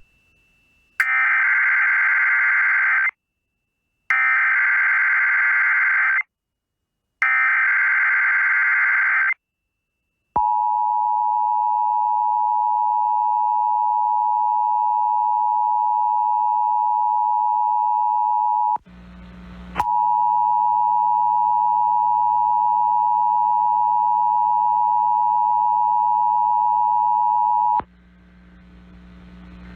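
Emergency Alert System SAME header: three bursts of warbling digital data, each about two seconds long, with short silences between them. A steady, loud alert attention tone follows for about eight seconds. After a brief burst of static, the attention tone sounds again for about eight more seconds with a low hum under it.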